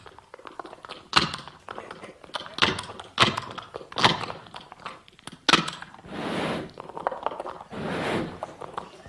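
Mouth-made sound effects of clambering up a truck: a run of sharp knocks and thuds over the first five seconds or so, then several longer rasping, breathy noises.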